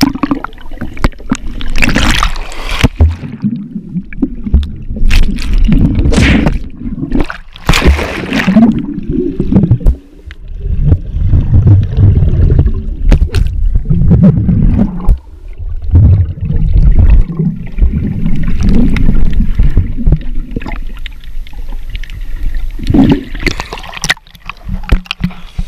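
Muffled underwater sound of water churning and bubbling around a GoPro Hero4's waterproof housing, a heavy low rumble that surges unevenly with the swimmer's movements. Several sharper splashes and clicks cut through it.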